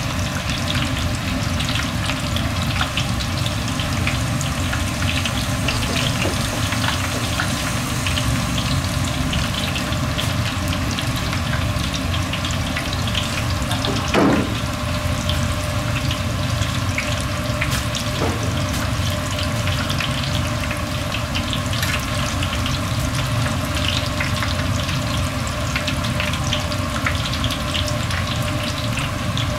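Breaded pork cutlets deep-frying in hot oil: a steady sizzle full of fine crackles, with one brief louder knock about halfway through.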